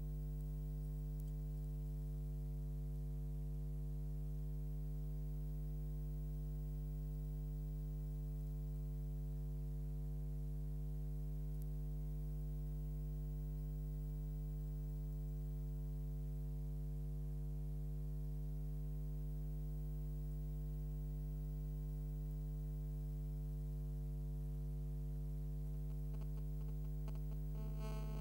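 Steady electrical mains hum, a low buzz with a stack of overtones that does not change. A faint crackle comes in near the end.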